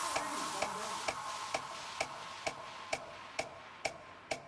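Sharp, evenly spaced ticks about two a second, the beat of the dance-workout track carrying on while the rest of the music fades out.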